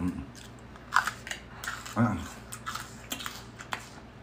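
Crisp cracks and snaps of fresh, hollow plant stalks being peeled and bitten, a string of separate sharp clicks roughly every half second, with a short murmur from a voice about two seconds in.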